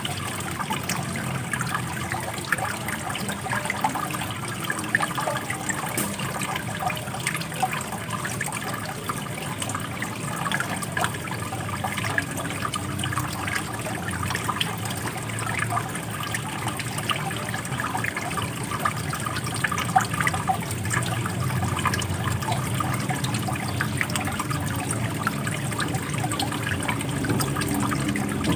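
Running water flowing steadily, full of small splashes.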